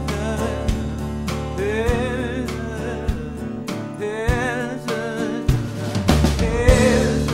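Music: a song between sung lines, with a drum kit keeping a steady beat and a wavering lead melody over a sustained bass.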